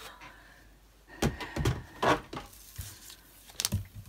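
Card stock being handled and positioned on a guillotine paper trimmer: a scattering of short clicks and knocks, about six of them.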